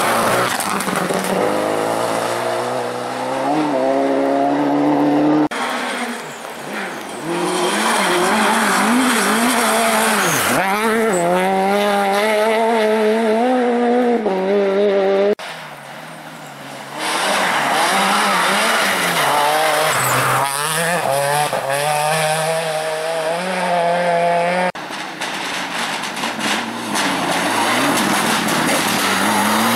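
Rally cars driving hard past the camera, one after another, engines climbing in pitch through the gears with a quick drop at each shift. The sound cuts abruptly between passes three times.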